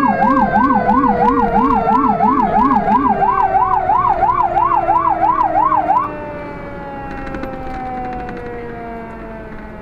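Fire engine's electronic siren in fast yelp, about three warbles a second, with a low-pitched Rumbler siren warbling in step beneath it until about three seconds in. The siren cuts off about six seconds in, leaving the truck's engine and road noise with a lower tone slowly falling in pitch.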